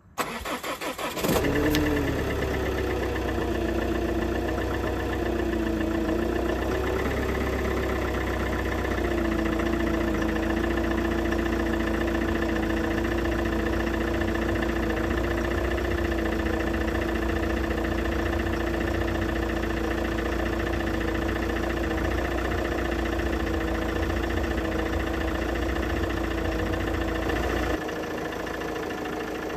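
Ford Kuga diesel engine cranking on the starter for about a second, then catching and settling into a steady idle. The note wavers for several seconds before holding even, as a cold start in freezing weather. The level drops a little near the end.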